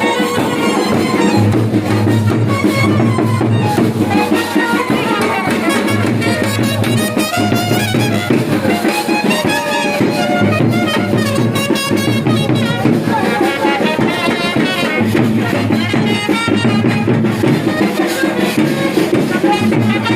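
Music with brass instruments and drums over a repeating bass line.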